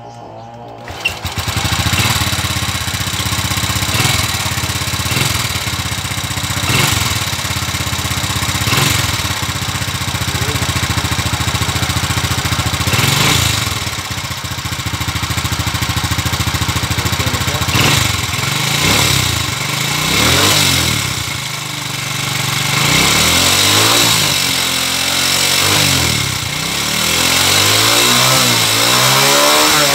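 Honda XRM110's 110 cc single-cylinder four-stroke engine starting about a second in and then running, firing on its newly fitted 4-pin Skygo CDI; in the second half the revs rise and fall several times.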